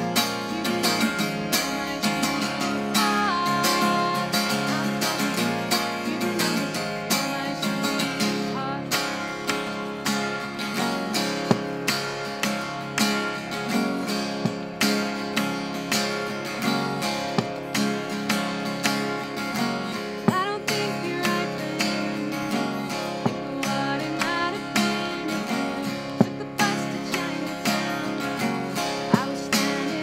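Acoustic guitar strummed in a steady rhythm, full chords ringing on.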